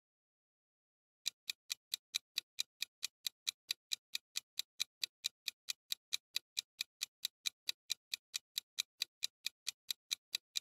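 Countdown timer's clock-ticking sound effect: fast, even ticks, about four or five a second, starting a little over a second in.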